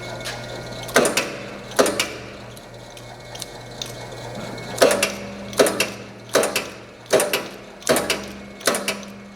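Kenco 3-ton mechanical punch press, its motor and flywheel running with a steady hum, cycled one stroke at a time from its palm buttons: each stroke is a sharp clank of the clutch and ram. There are two clanks about a second in, then six in a steady run, about one every three quarters of a second, from about five seconds in.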